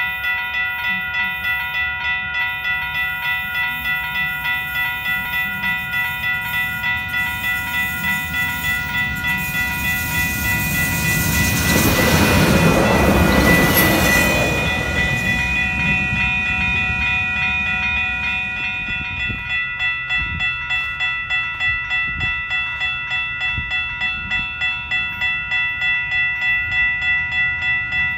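Railroad crossing bells ringing steadily at about two strikes a second while an NCTD Sprinter diesel multiple-unit train passes close by. The train's rushing noise swells and fades between about ten and sixteen seconds in.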